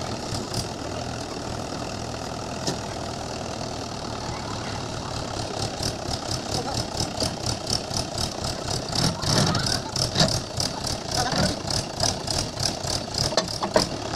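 Mahindra tractor's diesel engine idling steadily. From about six seconds in, a fast, even run of sharp ticks, roughly four a second, rides over the engine.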